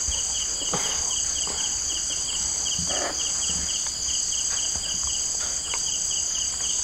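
Night insect chorus: several insects trilling steadily at a high pitch, one of them chirping in a fast pulsing rhythm. A couple of faint soft mouth or handling noises come through about a second in and again about three seconds in.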